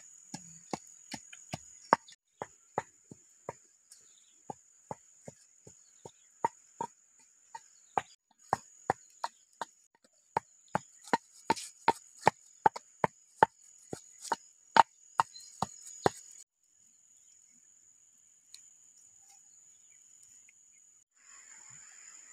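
Pestle pounding in a mortar: sharp knocks at an uneven pace, coming quicker, about two or three a second, in the second half, then stopping about sixteen seconds in. A steady high-pitched whine runs underneath.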